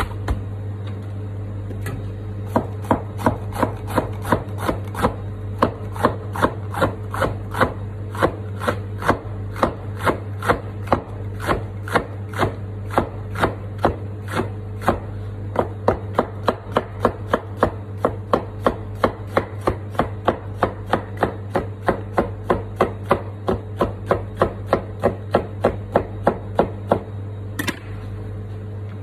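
Knife chopping red capsicum into strips on a plastic cutting board: fast, even strokes about three a second, starting a couple of seconds in and stopping shortly before the end, over a steady low hum.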